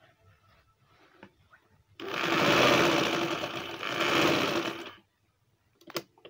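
Sewing machine running for about three seconds as it stitches a collar onto a shirt neckline, starting about two seconds in and stopping abruptly. A sharp click follows near the end.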